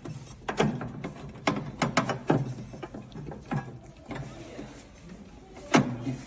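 Triangular support brackets knocking and clattering against the machine as they are pulled out, about eight sharp knocks with the loudest near the end.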